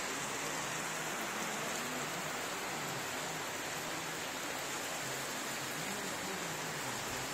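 Heavy rain falling steadily: an even, constant hiss of downpour.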